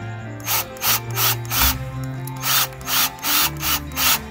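Cordless drill driving short screws into a deadbolt faceplate in a string of short bursts, about two a second. Background music plays underneath.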